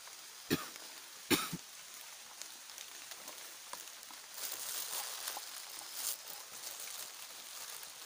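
Three short, sharp sounds in the first second and a half, the second the loudest, then rustling of leaves and clothing for a couple of seconds in the middle as someone moves in the undergrowth.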